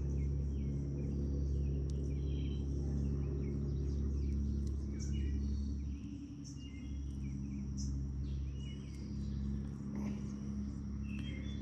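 Waterside ambience: a steady high insect drone and short, repeated bird calls over a low steady hum.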